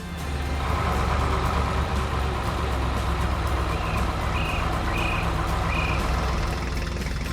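Heavy construction-vehicle diesel engine running with a steady low rumble. About halfway through, a backup alarm beeps four times, roughly two-thirds of a second apart.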